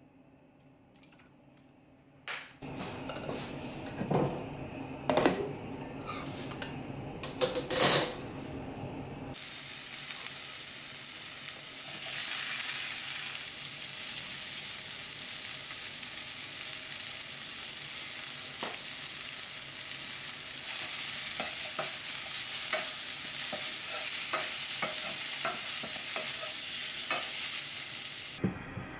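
A few loud knocks and clinks of cookware, then from about a third of the way in a steady sizzle of green peppers and red onion stir-frying in a stainless steel skillet. Near the end a wooden spatula taps and scrapes the pan.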